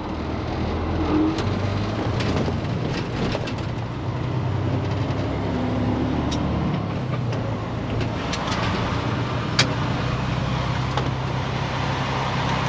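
Semi truck's diesel engine running at low speed, heard from inside the cab, with a few sharp clicks and rattles.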